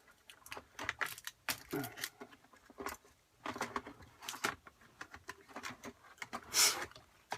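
Irregular small clicks, taps and rustles of hands working inside an opened iMac, freeing cables, connectors and metal parts around the logic board, with one louder rustle about six and a half seconds in.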